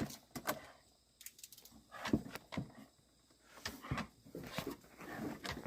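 A dog tugging and shaking at a person's jeans and foot: irregular scuffling, rustling and light knocks, with a couple of busier spells.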